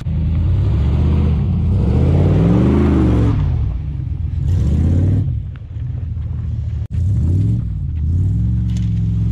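Chevrolet small-block 305 V8 in a 1989 CK1500 pickup being revved hard as the truck slides on snow; the engine pitch rises and falls several times, with a rushing hiss at times. The sound cuts out for an instant about seven seconds in, then the revving carries on.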